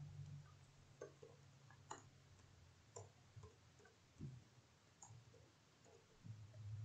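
Faint computer keyboard keystrokes: a dozen or so sparse, irregular clicks as a short command is typed, against near silence.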